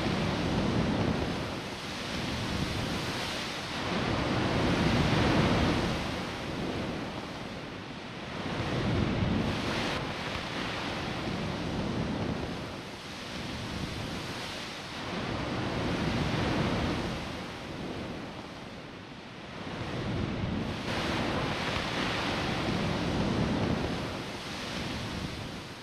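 Ocean surf: a rushing noise of waves that swells and ebbs about every four seconds, fading out at the very end.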